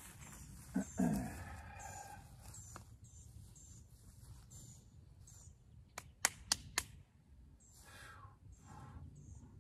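A bird calling outdoors, repeating a short high note about twice a second, with a louder call that falls in pitch about a second in. About six seconds in come four sharp cracks in quick succession.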